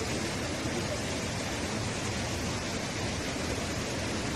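Torrent of floodwater rushing down a street: a steady, even rushing noise.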